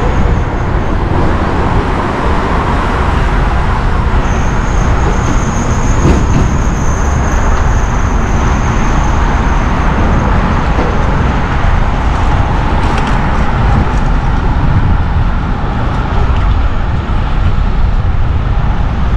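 City street traffic heard from a moving bicycle, with a heavy, steady low rumble. A thin, high steady whine runs from about four seconds in to about ten seconds in.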